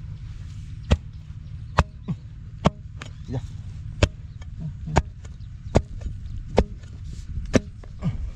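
A digging tool chopping into soil, about one strike a second, over a steady low rumble.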